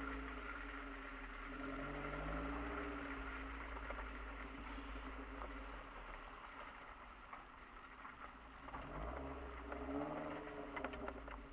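Kia Sportage's engine running as it drives slowly over a dirt track, heard from inside the cabin, its pitch rising and falling a couple of times with the throttle. A few short knocks near the end.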